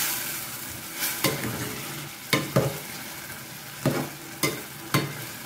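Slotted metal spatula stirring cooked urad dal in a metal pot, scraping and knocking against the pot about six times over a steady sizzle of the simmering dal.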